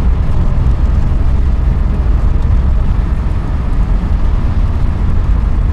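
Loud, steady low rumble of a car in motion heard from inside the cabin, with tyre noise from a wet road.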